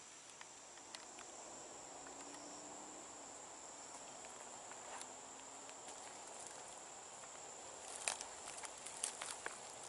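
Insects such as crickets singing in a steady, faint, high trill. Near the end come a few sharp crunches, like footsteps on dry leaves and twigs.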